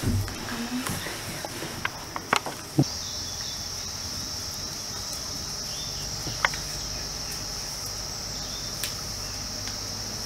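A steady high-pitched drone like insects chirping, which gets louder about three seconds in and then holds, with a few soft clicks and taps from handling marigold flowers and garland thread.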